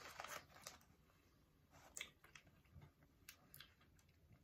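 Near silence, with a few faint, scattered clicks and mouth sounds as powdered candy is tasted off a stick. The clearest click comes about two seconds in.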